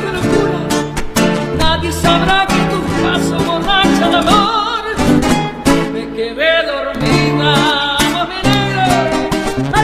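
Two acoustic guitars, a classical guitar and a black acoustic guitar, strumming and picking a ballad accompaniment while a woman sings with a wide vibrato, with held notes near the middle and end.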